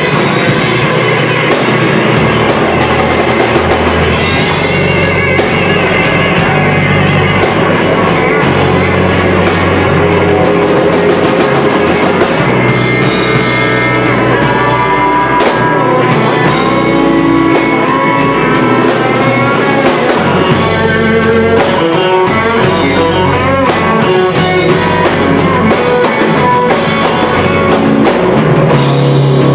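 Live band of two electric guitars and a drum kit playing a blues-rock instrumental, the lead guitar playing bending notes over steady drums and cymbals.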